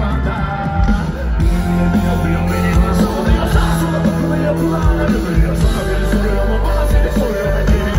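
Live rock band playing loud through the concert PA, with singing over the band, heard from within the crowd.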